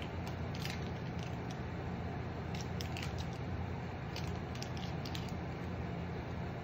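Water heating in a frying pan around a block of instant yakisoba noodles, giving off scattered small pops and crackles over a steady low hum.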